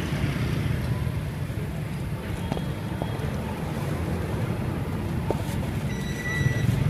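Steady low rumble of street traffic, with a few faint clicks and a brief high-pitched tone near the end.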